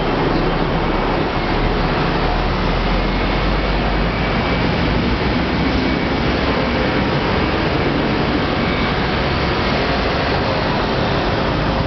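Loud, steady rushing noise with a wavering low rumble, with no distinct events.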